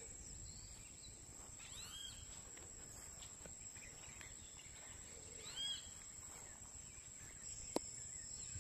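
Faint rural ambience: a steady high-pitched insect drone, with two short bird calls, about two seconds in and again near six seconds, and a single sharp click near the end.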